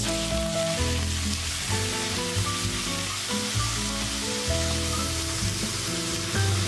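Ground meat dropped into a hot frying pan, sizzling as it is spread and stirred with a spatula.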